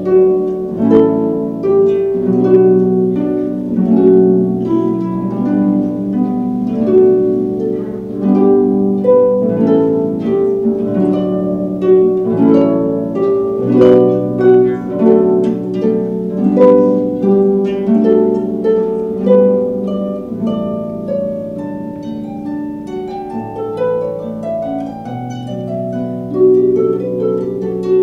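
Solo concert harp played with both hands: plucked notes and chords ringing into one another, softer for a few seconds past the middle before growing louder again near the end.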